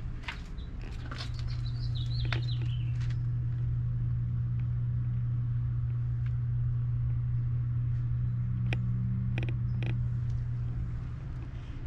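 A steady low hum, with a short falling chirp about two seconds in and a few sharp clicks about nine seconds in.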